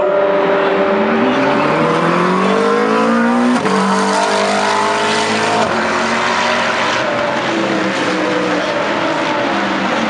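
GT3 race car engines at full throttle, their notes climbing steeply as the cars accelerate, then breaking off abruptly about three and a half seconds in. After that, steadier engine notes from several cars passing on the circuit.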